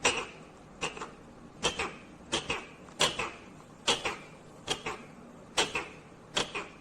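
Ringneck parrot calling in a steady series of short, sharp squawks, about one every second, each dropping steeply in pitch.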